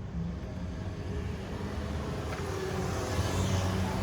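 Used engine oil pouring from a drain pan into a plastic oil bottle, the pouring hiss growing louder about halfway through, over a steady low hum.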